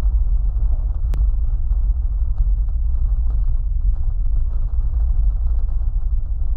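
Deep, steady rumble of an erupting volcanic crater with a fountaining lava lake, with a single sharp click about a second in.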